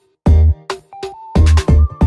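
Electronic background music with a heavy, regular beat. It cuts out briefly at the start, then a held synth note steps upward in pitch from about a second in.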